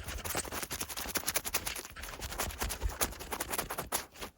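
Fast, irregular scratching and rubbing right on the microphone: ASMR ear-cleaning sounds standing in for wiping leftover debris and liquid out of an ear. It pauses briefly near the end.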